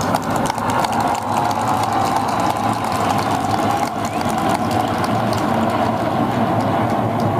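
Steady, loud jet aircraft engine noise, with a faint crackle running through it.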